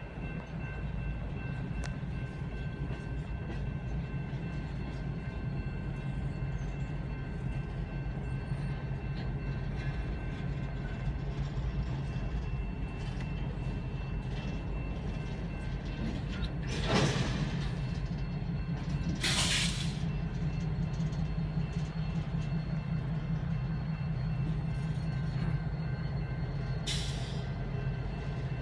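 Freight train of refrigerated boxcars rolling past: a steady low rumble with a faint, steady high whine. Three short hisses break in, two about two-thirds of the way through and one near the end.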